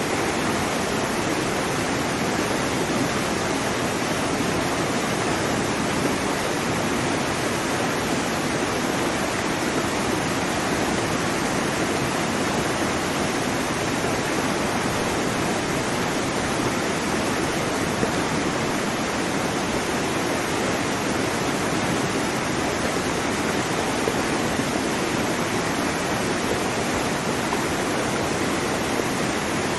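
A waterfall: water falling and splashing with a steady, unbroken rush.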